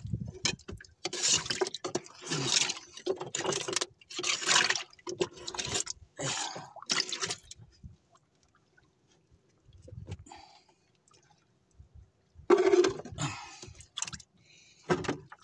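Water splashing and sloshing in a boat's fish hold as a hand moves through freshly caught fish. It comes in a run of short bursts, then a quiet spell, then a little more splashing near the end.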